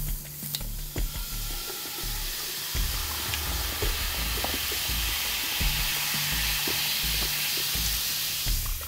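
Coca-Cola poured into a sink over a clogged drain and stirred, fizzing and foaming with a steady crackling hiss of bursting bubbles and a few small clicks.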